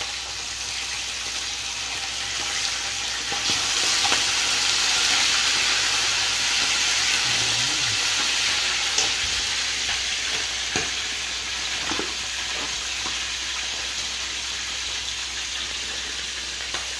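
Pieces of tarpon sizzling as they fry in hot oil in a frying pan. The sizzle swells about four seconds in and eases off after, with a few light clicks of a fork against the pan as the pieces are turned.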